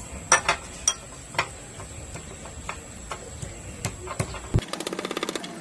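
Moringa (malunggay) leaves being pounded with a pestle in a mortar: irregular sharp knocks, then about four and a half seconds in a fast, even run of rapid taps.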